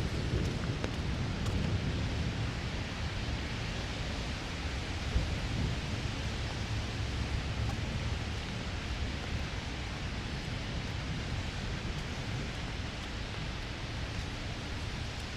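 Steady rain falling, an even hiss with scattered faint ticks over a low rumble, and one brief louder tick about five seconds in.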